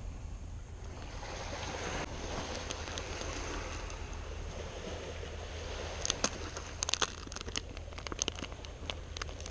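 Steady wind and surf noise with wind rumble on the microphone. About six seconds in comes a run of sharp clicks and taps lasting a few seconds.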